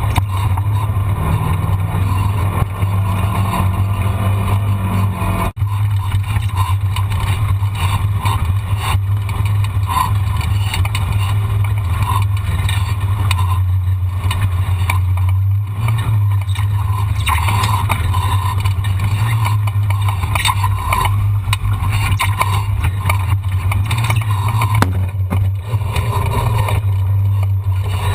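A vehicle engine running with a steady low drone, briefly dipping and changing character about five and a half seconds in.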